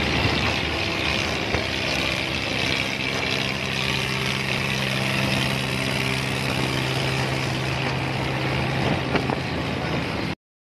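Tractor diesel engine running steadily at road speed, a constant low hum under a steady hiss, cutting off abruptly near the end.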